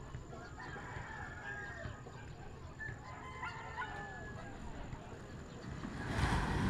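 A rooster crowing twice, each crow a drawn-out call with a bending pitch. A rush of noise swells near the end.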